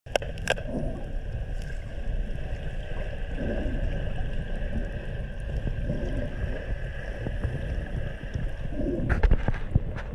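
Underwater sound through a GoPro's waterproof housing: a steady hum over a low rumble, with soft swells every few seconds. Sharp clicks come at the start and again in a cluster about nine seconds in.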